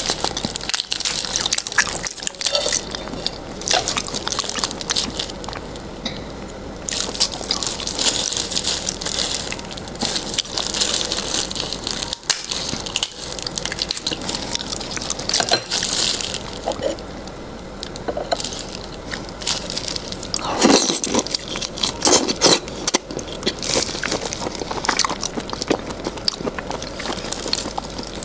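Large raw shrimp shell being cracked and peeled apart by gloved hands close to a clip-on microphone: wet crackling, clicking and squelching in bursts with short lulls.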